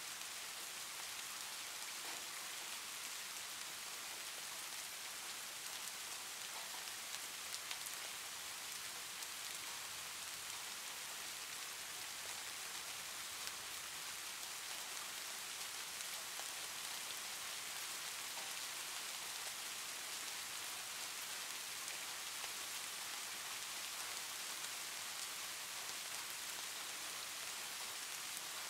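Soft, steady rain ambience: an even hiss of falling rain with faint, scattered drop ticks.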